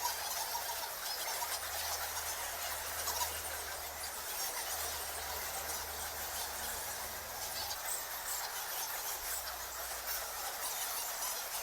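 A colony of bats in a cave squeaking and chittering, a dense, continuous chorus of many overlapping high squeaks and clicks.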